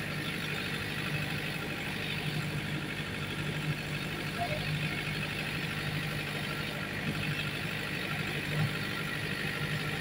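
JZC-series drum concrete mixer running with a steady, even hum.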